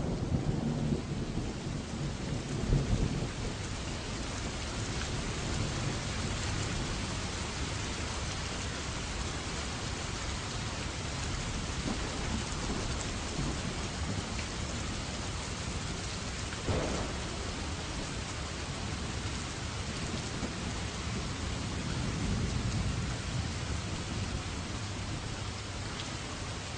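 Steady rain pouring down, with thunder rumbling low in the first few seconds and again about 22 seconds in. A single brief knock stands out about 17 seconds in.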